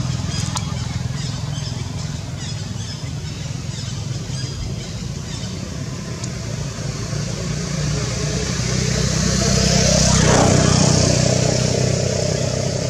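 Motor vehicle engine running, with a steady low hum, swelling to its loudest about ten seconds in as a vehicle passes, then easing off.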